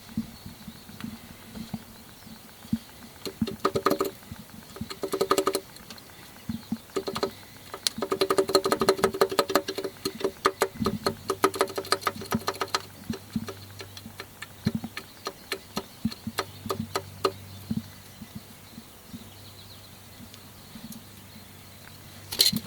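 2005 Nissan Sentra 1.8-litre four-cylinder engine running with a rapid, even knocking that gets louder in several stretches. The knock comes from a worn-out number 3 connecting rod big-end bearing.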